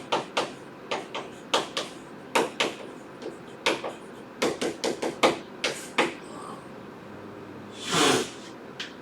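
An irregular run of sharp taps or clicks on a hard surface, about two to four a second for the first six seconds, then a short rushing noise about eight seconds in.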